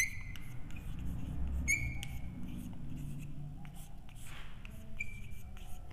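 Chalk writing on a blackboard: a run of small scratches and taps as letters are formed. Three short high squeaks of the chalk come at the start, about two seconds in and near the end.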